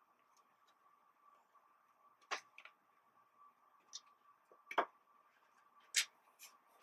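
A few faint, short clicks and rustles of a paper sticker book and its packaging being handled and opened, scattered over a few seconds, over a faint steady tone.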